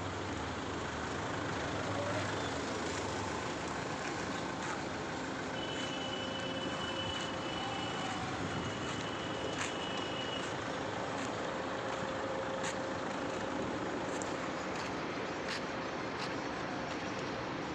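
Steady outdoor background noise with no single clear source. Two long, high-pitched steady tones come one after the other about a third of the way in.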